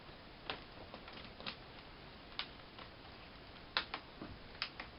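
Snap-in plastic screen bezel of a Toshiba Satellite L305 laptop being pried loose by fingernail along its edge: a string of sharp, irregular clicks as the clips let go.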